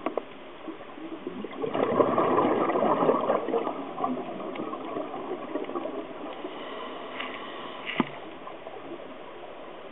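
Scuba diver's exhaled bubbles gurgling past the underwater camera for about two seconds, then fading, with a single sharp click near the end.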